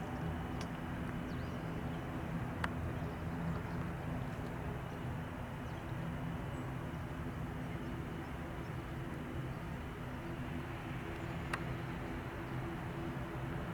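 Airbus A321 jet engines (CFM56 turbofans) running at a steady, even level, with a stack of low steady tones under a constant rush. Two sharp clicks come through, one about two and a half seconds in and one near the end.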